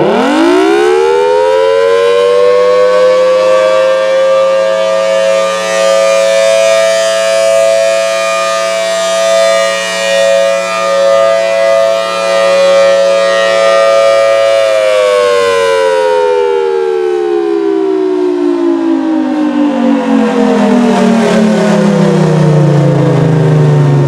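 Federal Signal Thunderbolt 1000T rotating outdoor warning siren: it winds up quickly to a steady, very loud tone that swells and fades as the horn rotates, then winds down for the last third or so, the pitch sliding steadily lower.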